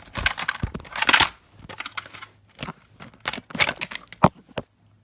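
Irregular crinkling and rustling handling noises with a few sharp clicks, from toys and material being worked by hand as the figure is made to 'poop'.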